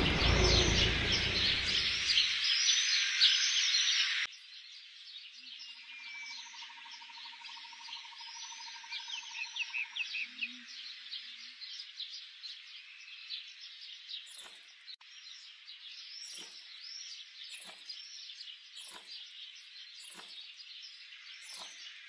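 Birds chirping, with a loud rushing noise over them that cuts off suddenly about four seconds in. In the second half a short, sharp chirp repeats about once a second.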